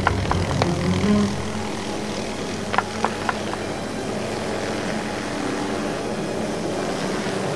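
A steady mechanical drone of an engine, with a few short, sharp clicks in the first few seconds.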